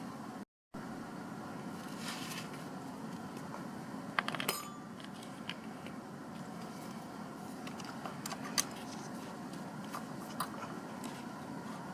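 Small metal tools clinking and tapping during soldering work on a laptop circuit board: a quick cluster of clicks with a short ring about four seconds in, then scattered single ticks, over a steady low hum.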